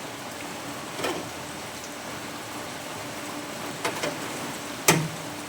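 Four sharp knocks of metal on metal as a sheet-steel repair strip is bent and tapped into shape, two of them close together and the loudest near the end, over a steady hiss of rain.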